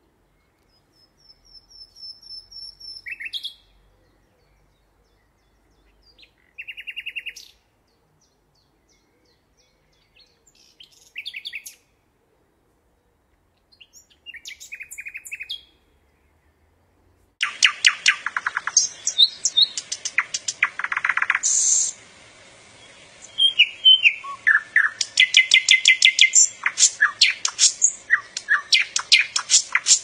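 Nightingale singing. At first it gives short separate phrases with pauses between them: a high drawn-out whistle, quick rattling note series and buzzy notes. About halfway through it turns louder and near-continuous, with fast repeated trills and whistles over a faint steady hiss.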